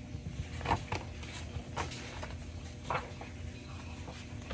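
Soft handling noises from a large picture book being moved and set down on a table: a few light taps and paper rustles, over a steady low hum.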